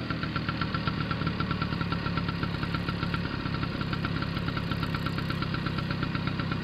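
Auto-rickshaw engine idling with a fast, even pulsing beat.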